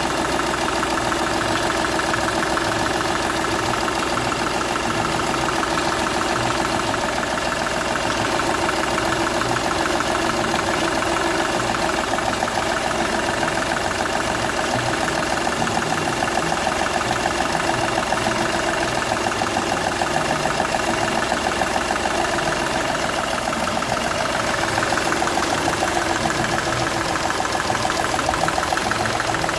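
Seat Ibiza's 1.2 TDI three-cylinder diesel engine running steadily at idle, with the noise of compression escaping past the first cylinder's injector seal, which has burnt through.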